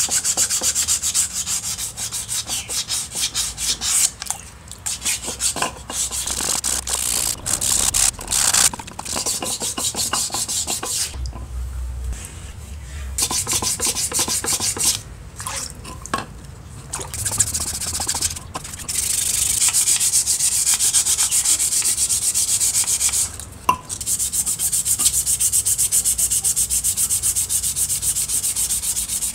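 Abrasive scouring of rusty metal parts, a fast rasping scrape in repeated passes with short pauses between them: rust and old paint being taken off.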